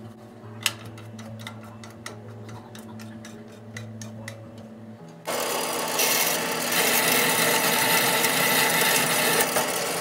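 About five seconds in, a horizontal metal-cutting bandsaw's blade starts cutting through a round metal rod: a loud, steady cutting noise. Before that, only light scattered ticks.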